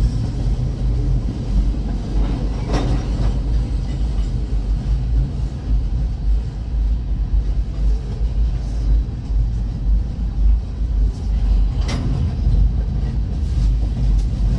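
Freight train cars rolling past a grade crossing: a steady low rumble of wheels on rail, with two sharp clanks, one about three seconds in and one about twelve seconds in.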